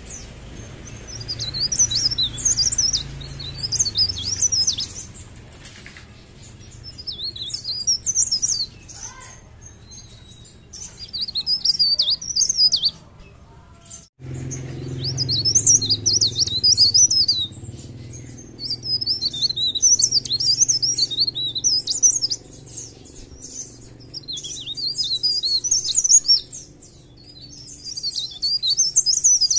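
Caged blerengan, the cikrak daun leaf warbler, singing: phrases of rapid, high-pitched twittering a few seconds long, repeated about every few seconds with short pauses between, over a low steady background rumble.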